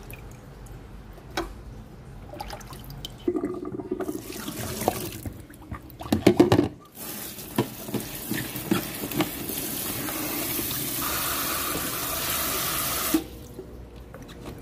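Water splashing and sloshing as wet food is handled in a sink, then a kitchen tap running steadily into a stainless steel sink over a plastic colander while salted preserved radish (chai poh) is rubbed and rinsed by hand. The tap runs for about six seconds and is shut off suddenly near the end.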